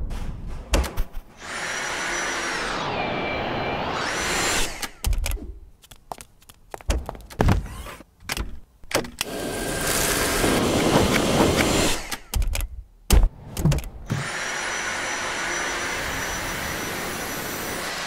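Dyson cordless vacuum cleaner's motor running with a high whine, in stretches of a few seconds, broken up by abrupt cuts, clicks and thunks.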